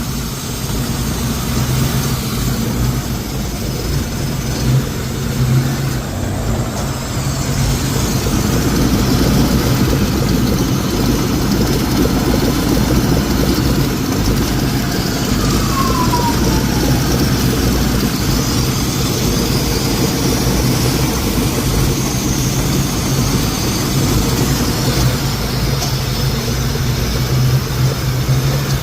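Car engine idling steadily, with a hiss that comes in about eight seconds in and a short falling whistle midway.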